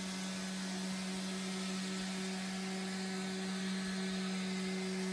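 Robot vacuum cleaner running: a steady hum with an even hiss above it.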